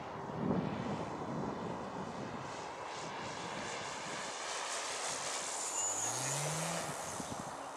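Electric motor and propeller of a 2.2 m radio-controlled Yak 54 model aeroplane in flight, its whine growing louder as it makes a low, close pass about six seconds in, the high tone dipping slightly as it goes by.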